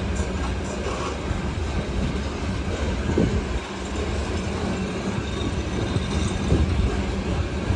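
Freight cars of a long grain train rolling past: a steady rumble of wheels on rail, with a few knocks as wheels cross rail joints.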